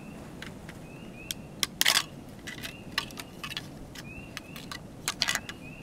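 Plastic casing of a disposable camera being pried apart: a series of sharp clicks and cracks as the latches give. The loudest cracks come about two seconds in and again near the end.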